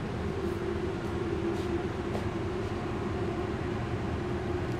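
Steady low rumble and hum of a commercial kitchen's running equipment, with a few faint clinks.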